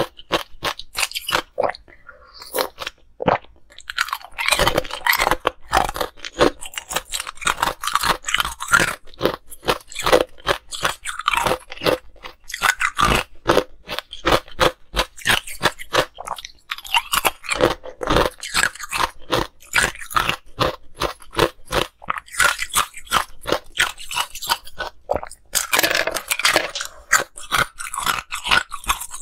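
Close-miked crunching and chewing of hard ice cubes: rapid sharp crunches, several a second, in runs broken by brief pauses.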